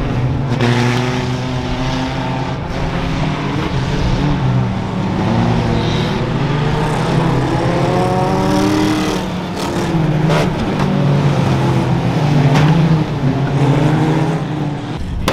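Several banger race cars running together, their engines rising and falling in pitch as they rev, with a few short knocks in among them.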